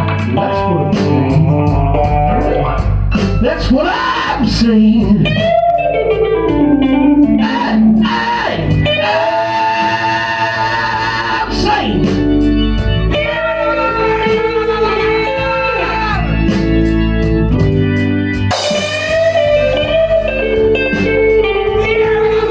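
A blues-rock band playing live: an electric guitar line with bent, gliding notes over bass and a steady drum beat.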